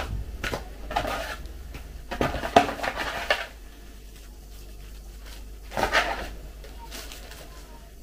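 A cardboard box and paper packaging being handled, rustling and scraping in three short bursts: about half a second in, around two to three seconds in, and near six seconds. A low steady hum runs underneath.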